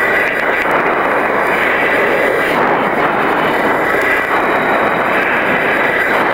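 Steady rushing noise of an F-14 Tomcat's jet engines and airflow, heard in the cockpit as recorded onto the aircraft's HUD tape, with a thin steady whine above it.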